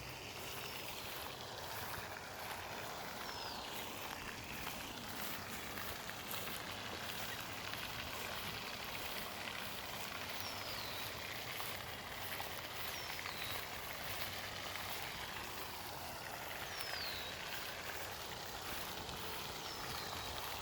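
Steady hiss of distant road traffic, with a bird giving a short, high, falling whistle about five times, every few seconds.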